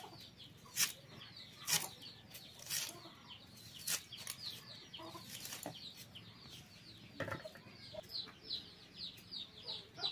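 Red onion sliced against a bonti's fixed upright iron blade: a short crisp cut every second or so. Birds chirp throughout with high falling chirps, several a second.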